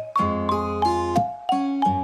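Instrumental background music: a light tune of short struck notes, about three a second, over a steady bass.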